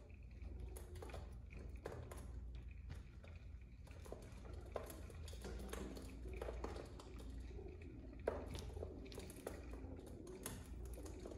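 Pigeons pecking seed from bowls, heard through window glass: scattered faint taps and clicks of beaks on the seed and bowls, with one sharper knock about eight seconds in, over a steady low hum.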